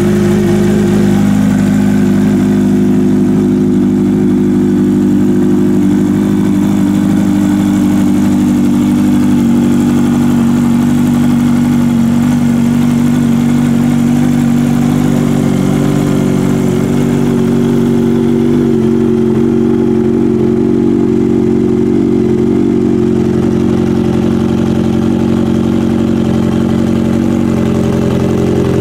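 Kawasaki Ninja H2's supercharged inline-four idling steadily through a Vandemon aftermarket exhaust, really loud, with small shifts in the engine note about a second in and again around nine seconds in.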